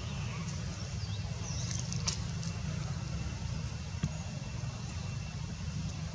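Outdoor background noise: a steady low rumble, with a few faint high chirps and a sharp tick about two seconds in.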